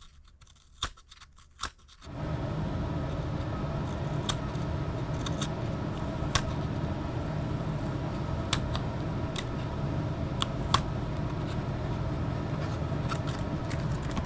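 Sharp clicks and scrapes of an X-Acto knife cutting away plastic flashing. About two seconds in, a steady low rumbling noise starts suddenly and continues under further scattered clicks.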